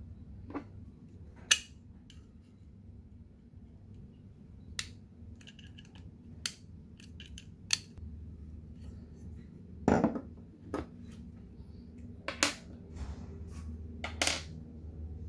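Scattered sharp clicks and knocks of a Colt 1911 CO2 BB pistol's slide being handled and set down on a table, about eight in all, with light rattles between them.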